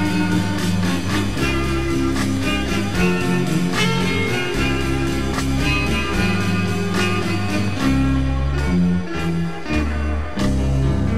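Early-1960s instrumental guitar rock recording: an electric guitar melody over bass guitar and drums, with a steady beat.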